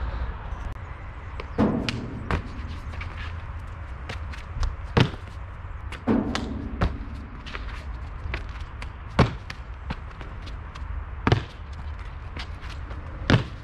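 Parkour landings, hand plants and footfalls on concrete: a series of sharp thuds and slaps, the loudest about two, five, nine, eleven and thirteen seconds in, with lighter taps and scuffs between them.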